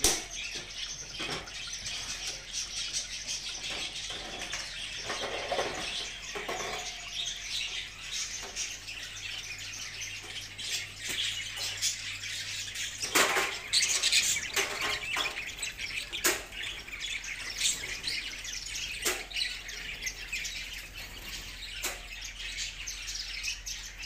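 Many caged small birds chirping together in a dense, continuous chatter, with a few sharp clicks, the loudest about halfway through.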